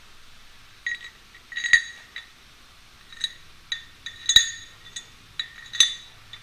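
Small metal bolts and a metal gearbox-housing casting clinking together as the bolts are handled and fitted into the casting's holes: about a dozen sharp metallic clinks, each ringing briefly.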